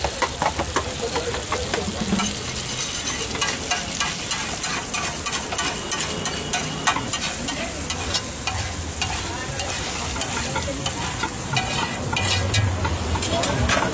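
Eggs frying and sizzling in a hot pan while a metal spatula stirs and scrapes, giving quick, irregular clicks and scrapes over a steady sizzle.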